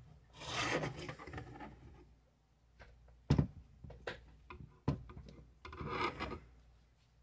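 3D-printed plastic ruler parts handled on a work surface while the glued pieces are set in a spring clamp. There is rubbing and scraping about half a second in and again near six seconds, with two sharp knocks between them.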